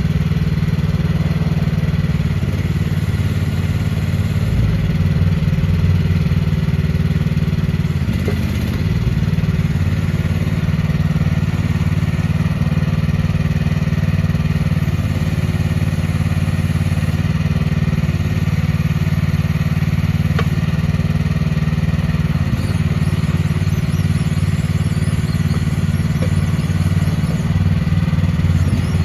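Mini excavator's Briggs & Stratton engine running steadily at an even speed while the machine is worked.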